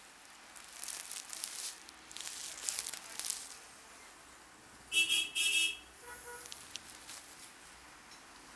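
Hands rubbing and rustling over hair and scalp during a head massage for the first few seconds. About five seconds in, a vehicle horn gives two short honks.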